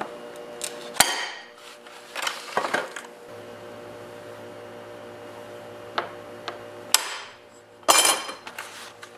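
Regular window glass being broken off along score lines: sharp cracks about a second in and again near the seventh second, then a ringing clatter of glass pieces about eight seconds in.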